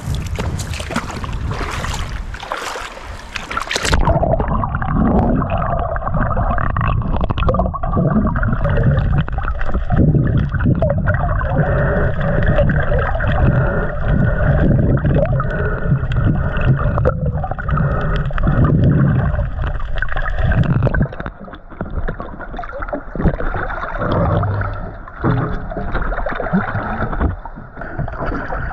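Splashing as someone wades into shallow sea water, then, about four seconds in, the sound turns muffled as it is heard from underwater: water rushing and gurgling around a swimmer.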